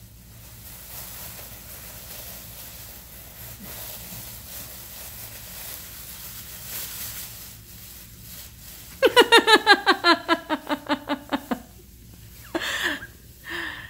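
Plastic grocery bag rustling faintly as it is pulled off a cat. About nine seconds in, a burst of rapid laughter falling in pitch, followed by two short breathy gasps near the end.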